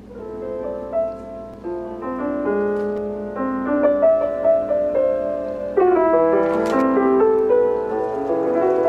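Background piano music: a slow run of single notes and held chords.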